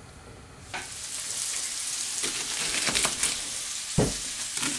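Food sizzling in a hot frying pan, a steady hiss that sets in about a second in. Several sharp knocks of a knife on a wooden cutting board cut through it, the loudest near the end.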